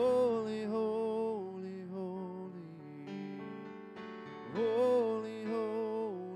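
A man singing a slow worship song over held electric keyboard chords, his voice sliding up into a long held note right at the start and again about four and a half seconds in.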